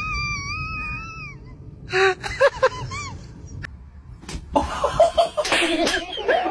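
A long high wavering cry, then short bursts of a person's laughter, and a noisy stretch with more laughter near the end.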